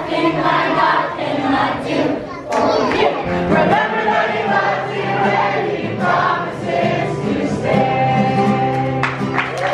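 A group of children singing a song together as a choir, with long held notes in the second half.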